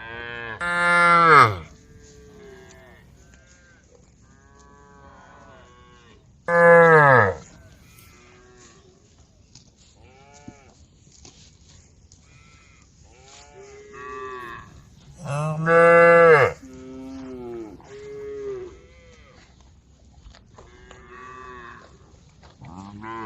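Cows mooing. A cow gives three loud, drawn-out moos, each falling in pitch at the end, spaced several seconds apart: a cow calling to the herd. Many fainter moos from other cattle answer in between.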